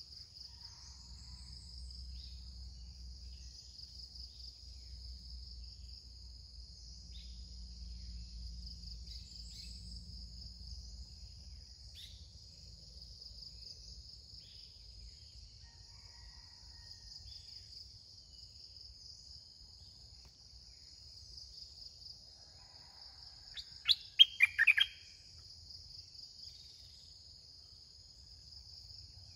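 Steady high-pitched insect drone, with a few faint bird notes. Near the end comes a quick cluster of loud, sharp bulbul chirps, the loudest sound here.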